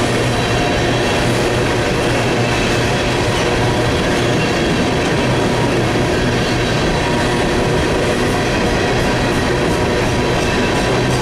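Empty coal train's hopper cars rolling past at close range: a steady loud noise of wheels on rail, with faint steady squealing tones running through it.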